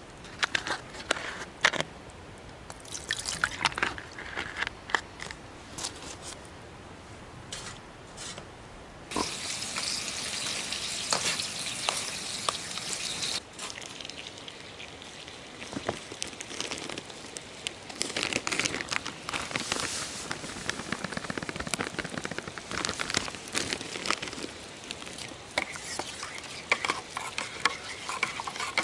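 Camp cooking over a burning wood twig stove: the fire crackles while a spatula scrapes and taps against a metal pot, with a few seconds of steady hissing about a third of the way in.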